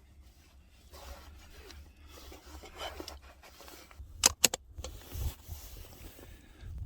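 Gloved hands handling a camera and KASE Armour magnetic filter parts: rubbing and scraping, then two sharp clicks in quick succession a little over four seconds in as a magnetic filter piece snaps into place.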